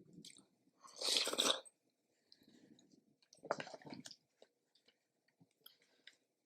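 Close-miked eating sounds: a person chewing, with two louder crunchy bites about a second in and again around three and a half seconds in, and soft mouth clicks between.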